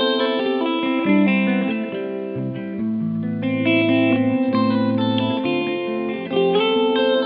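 Background music: electric guitar with effects, playing held, changing chords.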